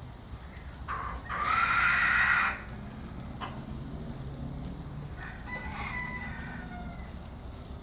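A rooster crowing once, starting about a second in and lasting about a second, followed by fainter chicken calls a few seconds later.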